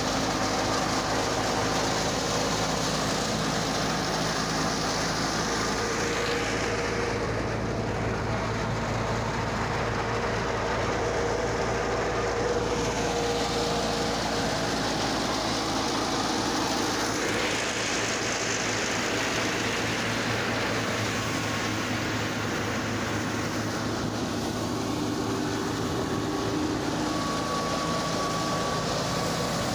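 Belt-driven wheat thresher running steadily as straw is fed in, together with the Fiat 480 tractor's diesel engine driving it under load. A constant, even mechanical din with no pauses.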